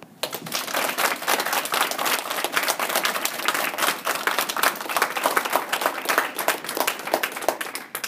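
Audience applauding: dense, irregular hand clapping that starts about a quarter second in and stops abruptly near the end.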